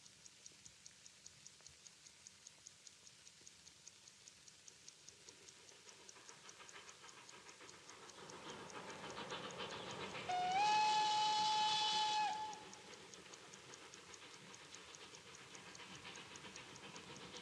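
A pocket watch ticking steadily, about five ticks a second. A steam locomotive approaches with a rising rush of noise, and about ten seconds in its steam whistle sounds one held note for about two seconds, sliding up at the start. The train noise then carries on more quietly under the ticking.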